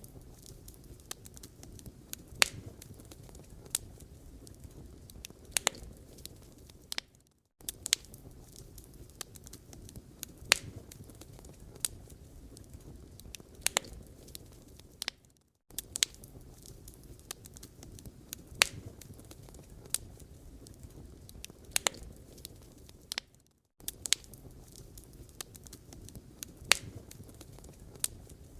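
Wood fire burning in a fireplace: a low steady rumble of flames with irregular sharp crackles and pops. The sound cuts out briefly three times, about every eight seconds.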